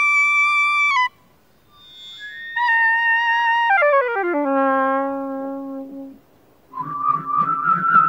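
Saxophone holding a high note that stops about a second in, then playing a new note that slides down in small steps by about two octaves to a low held note. Near the end, a whirled corrugated plastic tube sounds a warbling, wavering tone.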